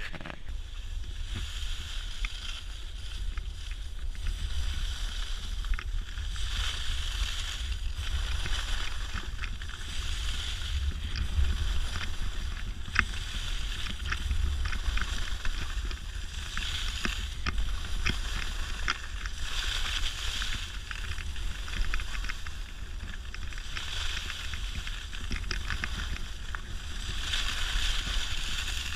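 Skis hissing and scraping over packed snow, swelling every three to four seconds with each turn, over a steady rumble of wind buffeting the action camera's microphone. A few sharp clicks come now and then.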